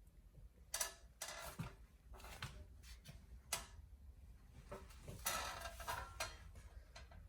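A few scattered, fairly quiet clicks and brief scrapes, like handling noise; no steady sound of running water.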